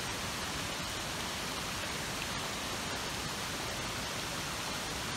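Spring-fed mountain stream running over a shallow gravel bed: a steady, even rush of water.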